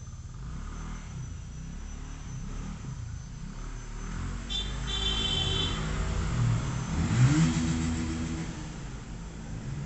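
A motor vehicle's engine rumbling, building up and rising in pitch to its loudest about seven seconds in, then easing off, as if it accelerates past.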